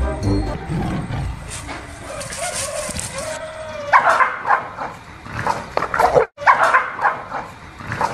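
A dog barking and yipping in a run of short, sharp bursts, starting about four seconds in.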